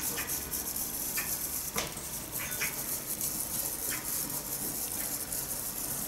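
Bamboo matcha whisk (chasen) whisking matcha in a ceramic bowl to froth it: a steady, soft, hissy swishing with a few light ticks of the whisk against the bowl in the first few seconds.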